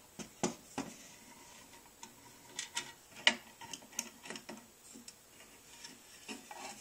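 Homemade tubular rivet clincher being screwed down tight on a rivet in a toy truck's pressed-steel bed, giving irregular small metallic clicks and ticks, the loudest a little past three seconds in.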